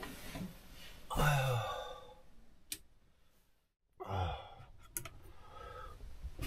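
A man's long, voiced sigh about a second in, falling in pitch as he settles into bed. A sharp click follows, then a second of dead silence, then another short voiced breath and a couple of clicks.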